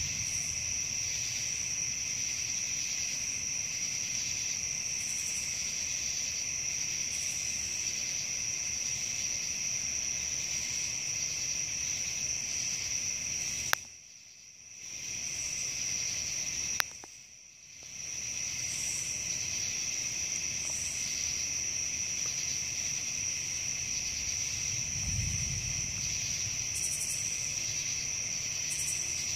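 Steady chorus of crickets chirring in two high, unbroken tones. About halfway through, two sharp clicks come a few seconds apart, and the sound dips away for a second or so after each. A brief low rumble comes near the end.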